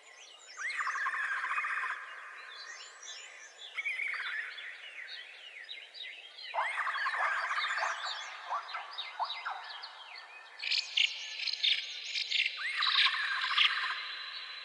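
Several birds chirping and trilling in overlapping bouts of calls, over a steady high-pitched tone.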